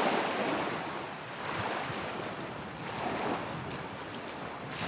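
Small waves washing up on a sandy shore, the wash swelling and easing about twice, with wind on the microphone.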